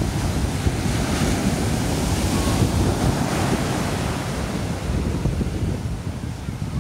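Atlantic Ocean surf breaking and washing up the beach, the hiss swelling about a second in and easing off after about four seconds. Wind buffets the microphone with a gusty low rumble throughout.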